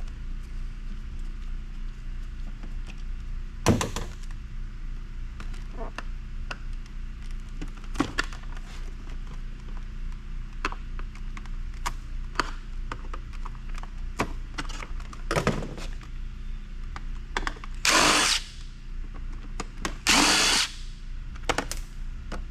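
Power drill-driver run in two short bursts near the end, working at stubborn small Phillips screws, with scattered clicks and knocks from handling the plastic housing in between.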